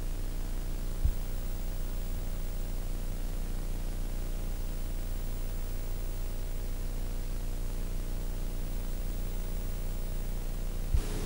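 Steady hiss with a low mains hum and its overtones: the background noise of an analog videotape with no programme sound on it. A short low thump comes about a second in and another near the end.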